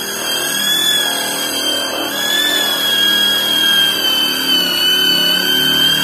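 Handheld electric polisher with a foam pad running against a car's painted body panel, buffing it: a steady high motor whine whose pitch wavers slightly.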